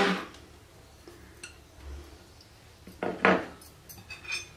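A few light clinks and knocks of a spoon against a mixing bowl as ingredients are added and stirred, the loudest about three seconds in.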